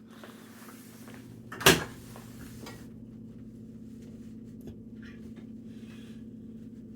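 A single sharp knock, the loudest sound, a little under two seconds in, followed by a few faint clicks, over a steady low hum.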